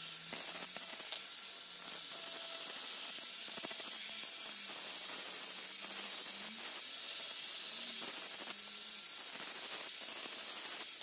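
Hand-held angle grinder with an abrasive disc grinding the edge of a large clam shell: a steady high hiss of grinding over the motor's hum, which wavers slightly.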